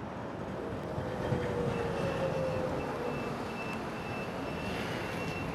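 Ganz articulated tram rolling slowly through a curve on street track, its wheels giving a thin, steady high squeal from about two seconds in, over a lower whine that slowly falls in pitch.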